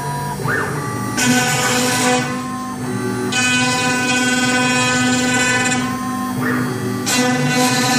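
CNC router spindle running steadily as its bit mills a logo into a wood-grain board, with a brief rising whine about half a second in and again near the end.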